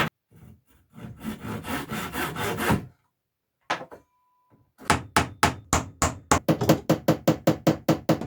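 Handsaw strokes cutting wood for about three seconds. After a short break, a fast, even run of hammer blows on wood begins about five seconds in, roughly four a second.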